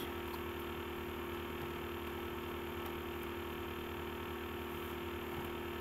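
Steady electrical hum over a faint hiss: room tone, with no distinct handling sounds.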